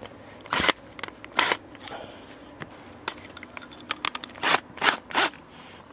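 A cordless drill and its hole saw bit being handled and lined up against wood siding: a handful of short, sharp scrapes and clicks, three of them close together near the end.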